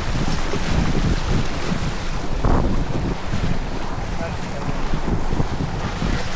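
Wind buffeting the microphone on a sailboat under way in a race, over the rush of water along the hull.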